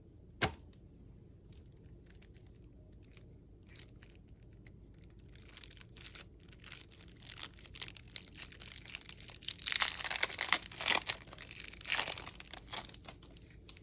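Wrapper of a Magic: The Gathering card pack being torn open and crinkled. A run of irregular crackling rips and rustles starts about halfway through and is loudest toward the end, with a single sharp click shortly after the start.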